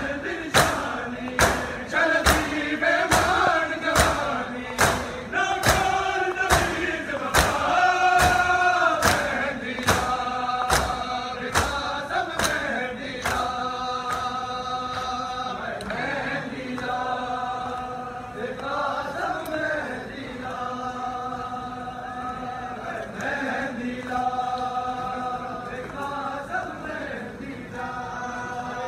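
Many men's voices chanting a noha in unison, a lamentation for Muharram, over sharp, regular beats of matam (hands struck on the chest) about one and a half a second. The beats stop about twelve seconds in, and the chanting goes on without them.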